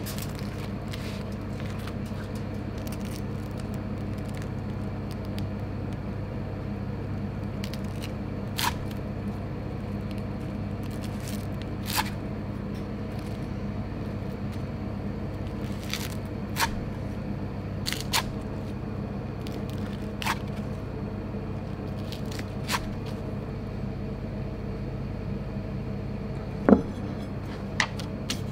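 A kitchen knife cuts through crisp-grilled saury sanga-yaki on a wooden cutting board. There are a few sharp crunches and knocks a couple of seconds apart, over a steady low kitchen hum. Near the end comes one louder knock.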